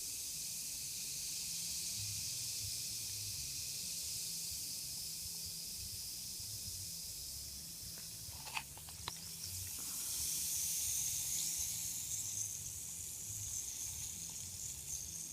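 Coke fizzing in a cup after Mentos were dropped in: a steady hiss of bursting bubbles, a mild reaction rather than an eruption. A couple of small clicks about halfway through.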